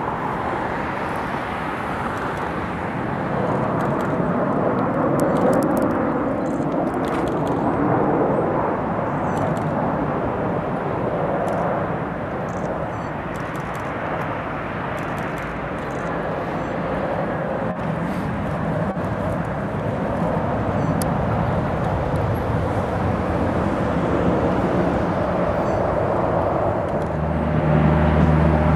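Aircraft engine noise at an airport: a steady broad rushing sound that swells and eases a few times. Near the end a low, steady hum comes in.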